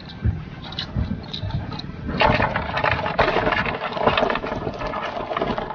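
A few low knocks, then from about two seconds in a busy clattering and rattling: fishing ground cages (collapsible crab nets) being hauled aboard a boat and handled.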